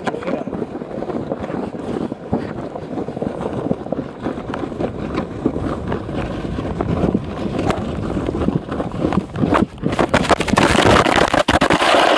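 Sled sliding fast down a snowy hill: a continuous rough scraping rumble over the snow with small bumps and wind on the microphone. It grows louder over the last two seconds, then cuts off abruptly.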